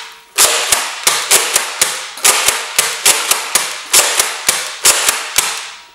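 BoomCo Halo Needler dart blaster fired again and again: a rapid, uneven string of sharp snaps, about three a second.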